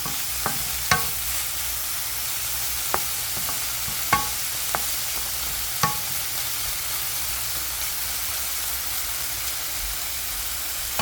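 Green beans and carrots sizzling steadily in a frying pan while being stirred, with a utensil knocking against the pan about six times in the first six seconds, some knocks ringing briefly.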